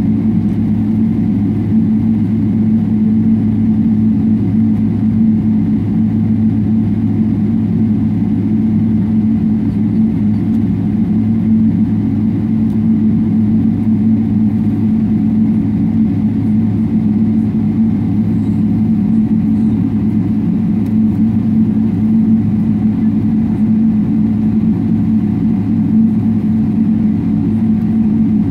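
Cabin noise of a Boeing 777-300ER taxiing with its GE90-115B engines at idle thrust: a loud, steady low drone with faint steady tones above it, holding even throughout with no spool-up.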